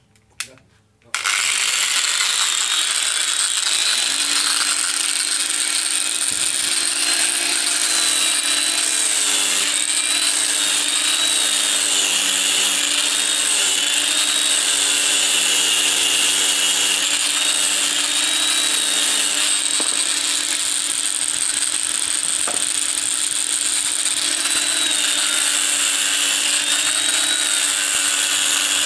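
Electric angle grinder fitted with a sanding disc, after two short knocks, starts about a second in and runs steadily, sanding a leaf spring steel throwing-knife blank; its whine wavers in pitch as the disc is worked against the steel.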